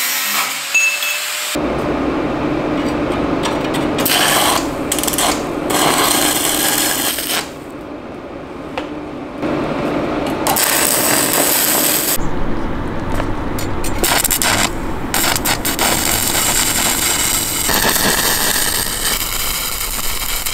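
An angle grinder for about the first second and a half, then an electric arc welder crackling through a series of short welds, with a quieter pause between welds about halfway through.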